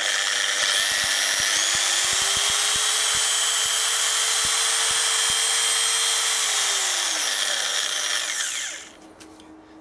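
A Michelin MOP300 300-watt orbital car polisher with a 3-inch pad running free in the air: its motor picks up speed gradually over the first couple of seconds, the soft start, runs steady, then winds down after switch-off and stops about nine seconds in.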